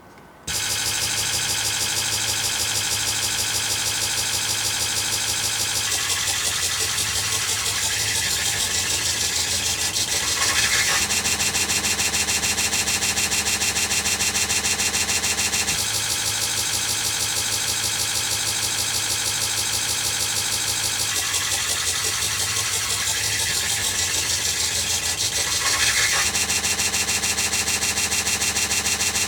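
Vectorscope-art audio signal generated on an Amiga: a harsh, buzzing pitched tone whose left and right channel waveforms trace the pixels of an animated flower picture. It starts abruptly about half a second in and holds steady, its timbre shifting about every five seconds as the animation frames change.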